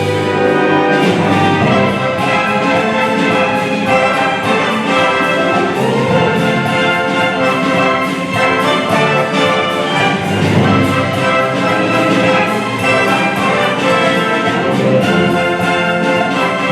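Symphony orchestra playing continuously, with the brass prominent over sustained chords.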